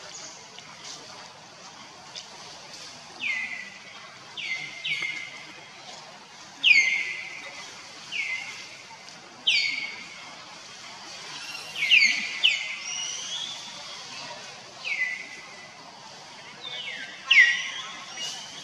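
A series of about a dozen short, high-pitched animal calls, each falling sharply in pitch, coming at uneven intervals over a steady outdoor background.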